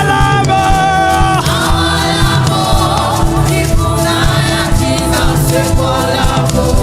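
Gospel worship music: a choir singing sustained notes over a live band with a steady beat.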